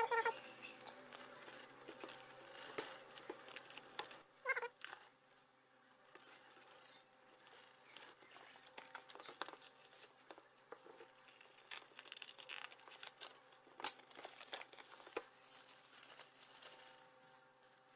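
Faint handling noises of a phone unboxing: scattered light clicks and taps with crinkling of packaging. A brief pitched sound comes about four and a half seconds in.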